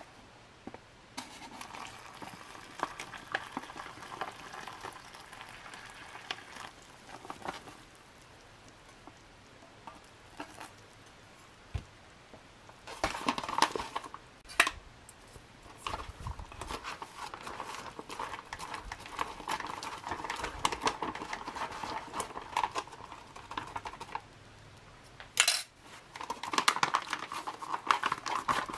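Water poured from a metal cup into a foil ration pouch of freeze-dried curry rice, the pouch crinkling and rustling as it is held and handled, with scattered small clicks. Near the end a packet wrapper crinkles sharply as it is opened.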